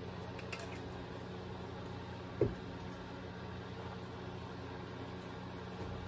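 Steady low hum in the background, with a single dull thump about two and a half seconds in as a motorcycle engine cylinder is handled.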